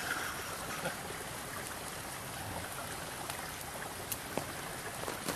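Steady rushing of a flowing creek, with a few faint clicks.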